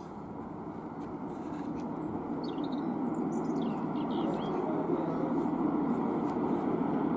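Diesel locomotive engine running as the locomotive approaches, a steady low rumble growing steadily louder. A few short bird chirps about midway.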